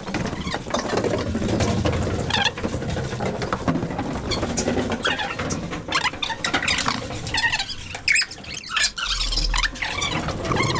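Fast-forwarded field audio of walking: rapid footsteps and clatter mixed with short, squeaky high-pitched snippets of sped-up sound.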